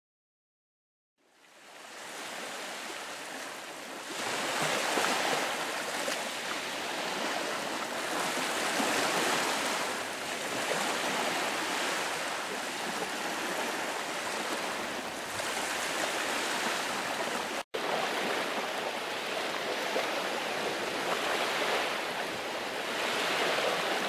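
Small waves breaking and washing up a shelly, sandy beach: a steady wash of surf that swells and eases every few seconds. It fades in about a second in, and drops out for a split second partway through.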